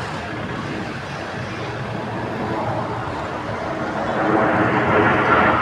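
Jet aircraft flying past, a steady rushing engine noise that grows louder over the last second and a half.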